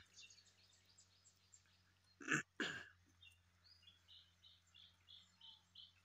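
Faint birdsong: a bird repeating short high chirps, about three a second, through the second half, with fainter chirps before. A little over two seconds in, a sheep bleats once in a short two-part call, the loudest sound here.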